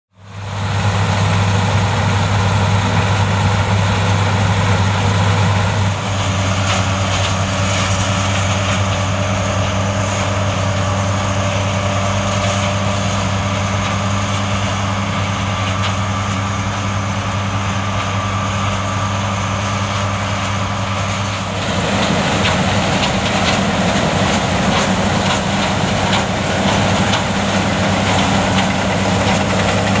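John Deere S670i combine harvester running steadily under load while harvesting rice, its 9-litre six-cylinder PowerTech PSX diesel humming with the threshing machinery. The sound changes abruptly twice, about six seconds in and again about twenty-one seconds in.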